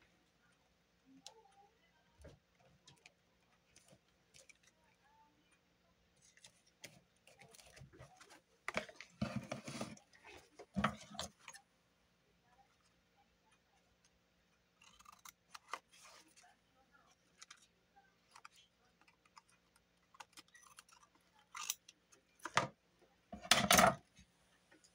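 Paper and card being handled on a craft table: scattered light clicks and rustles, with louder rustling about nine seconds in and again a second or two before the end.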